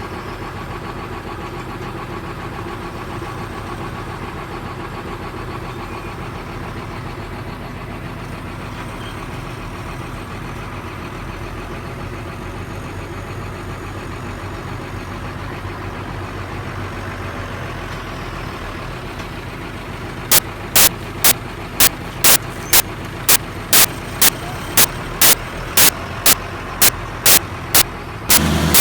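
Farm vehicle engine running steadily. From about two-thirds of the way in, a sharp click repeats evenly about twice a second over the engine.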